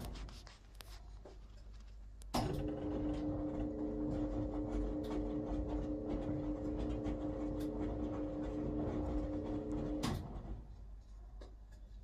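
Wyss Mirella Universal 2000 washing machine's drum motor in its wash cycle: a steady hum stops, pauses for about two seconds with small clicks, switches back on abruptly, runs for about eight seconds, then stops again near the end. The stop-pause-start pattern is the drum's wash rhythm, turning the laundry in one direction and then the other.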